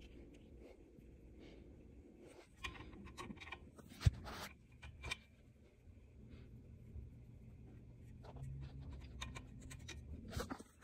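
Faint scratching and rubbing handling noises with scattered light clicks, and one sharp knock about four seconds in.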